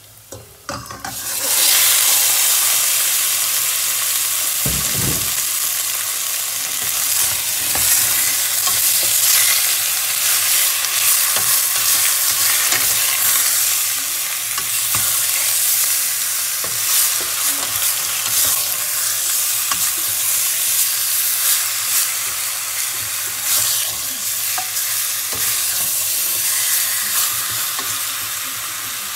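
Pieces of pork belly tipped into hot oil in a stainless steel pot, bursting into a loud sizzle about a second and a half in; the frying goes on steadily while the meat is stirred with a wooden spatula, with scrapes and knocks against the pot and one dull knock about five seconds in.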